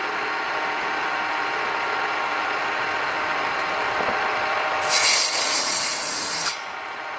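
Steady rubbing hiss, then a louder, harsher rasping stretch from about five seconds in that stops abruptly about a second and a half later.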